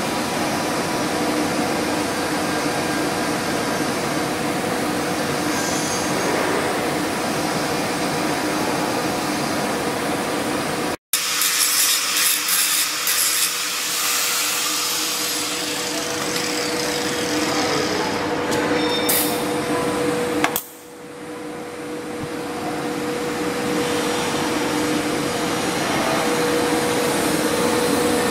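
Steady hissing drone of TIG pipe welding: the inverter welding machine and the arc, with a faint hum. The sound cuts out abruptly about 11 seconds in and comes back louder and crackly for a few seconds, then dips again just past 20 seconds before slowly swelling back.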